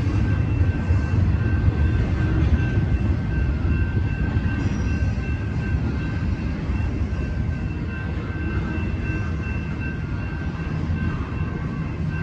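Double-stack intermodal well cars rolling past at a grade crossing, a heavy steady rumble of steel wheels on rail. Over it, the crossing-signal bells ring continuously as a repeating high ringing.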